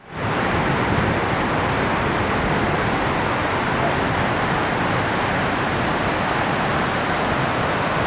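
Krimml Waterfalls, a high alpine waterfall, with a large volume of water crashing down over rock in a loud, steady rush. The rush comes in abruptly at the very start.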